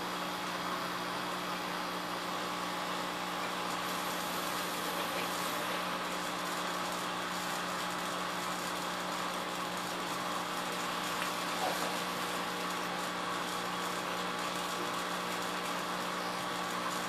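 Steady mechanical hum, a constant low tone over an even hiss.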